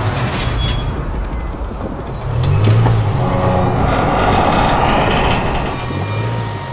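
Land Rover Discovery Sport engine pulling under heavy load as it starts to tow a train of about 100 tonnes, with the low rumble of the rolling stock. A rushing hiss builds about halfway through and fades near the end.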